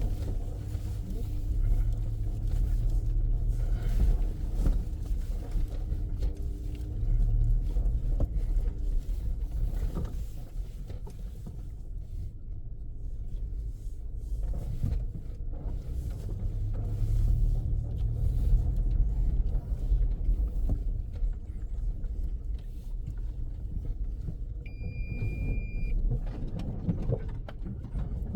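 Car driving slowly over a rough dirt forest road: a low engine and road rumble that swells and eases, with occasional knocks and jolts from the bumps. About three-quarters of the way through, a short high electronic beep lasting about a second.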